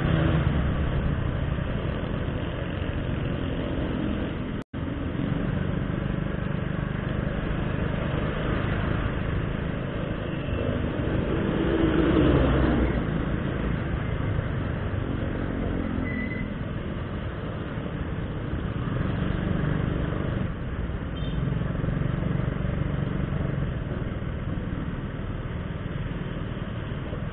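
A motorcycle engine running steadily while riding in traffic, with road and wind noise, as heard from a camera mounted on the bike. It grows louder for a moment about twelve seconds in, and the audio drops out briefly about four and a half seconds in.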